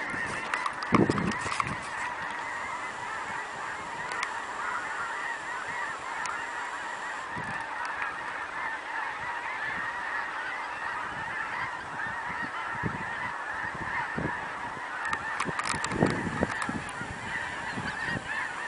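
A huge flock of birds calling all at once, a dense unbroken din of many overlapping calls, with a few low knocks near the start and about sixteen seconds in.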